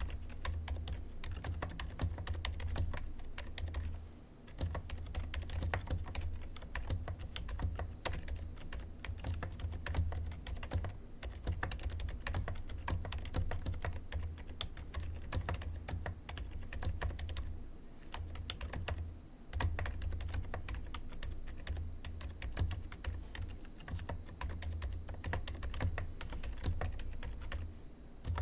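Typing on a mechanical keyboard: a fast, steady run of key presses, with a couple of short pauses.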